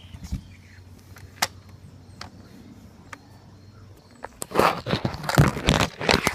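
Handling noise from the recording phone being picked up and moved: a few faint clicks, then from about four seconds in a loud, dense run of rustling, scraping and knocks right on the microphone.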